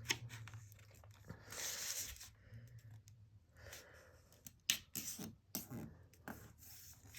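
A sheet of printer paper being folded and creased by hand: faint, separate rustles and crackles, with a longer rustle about one and a half seconds in and a cluster of sharp crackles around five seconds in.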